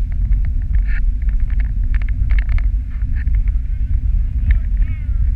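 Dog sled running over packed snow: a steady low rumble from the runners and wind on the camera's microphone, with a patter of small clicks and scrapes. Near the end comes a short squeal falling in pitch.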